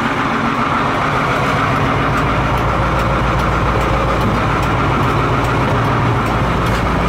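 Engine running steadily at idle, an even low hum that deepens a little about two seconds in.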